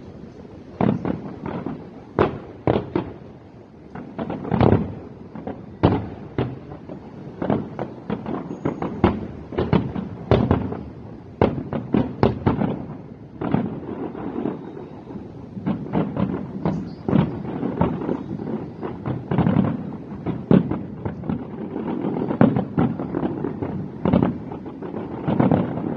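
Aerial fireworks shells bursting in a continuous barrage: many sharp bangs overlapping, several a second, with no let-up.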